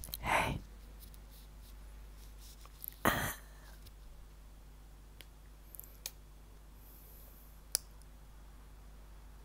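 Two short breathy puffs of a person's breath, shortly after the start and about three seconds in, followed by a few faint clicks.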